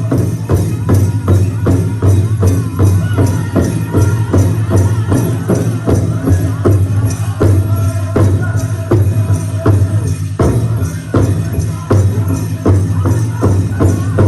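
Powwow drum and singing: a large drum struck in a steady beat of about three strokes a second, with singers' voices over it.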